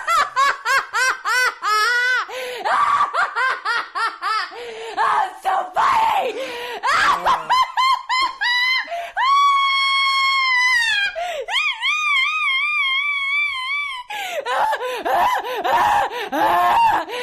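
A woman's deliberately exaggerated laugh, put on as a mock 'genuine laugh': a fast string of high-pitched ha-ha bursts, broken about halfway by two long, wavering shrieks, then rapid laughing again.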